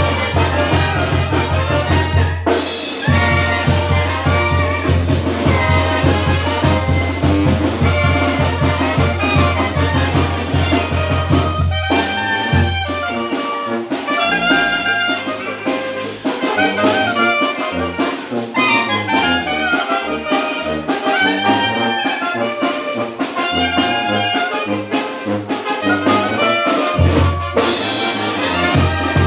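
Oaxacan brass band (banda de viento) playing a chilena: trumpets, trombones and saxophone carry the melody over a drum kit's steady beat and the sousaphone's heavy bass notes. The sousaphone drops out about twelve seconds in and comes back near the end.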